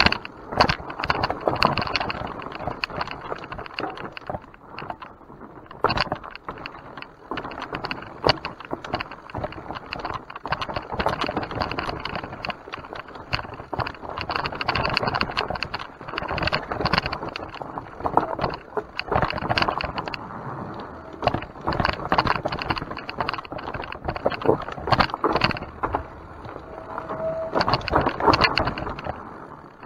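Mountain bike riding down a rough trail: steady tyre noise with frequent rattles and clicks from the bike as it goes over bumps.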